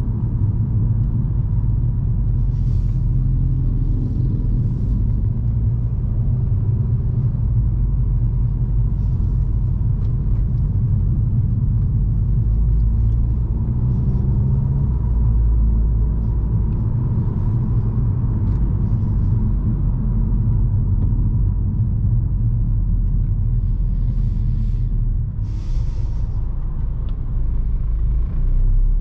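Stage 2 remapped VW Scirocco on the move: a steady low rumble of engine and road noise while driving.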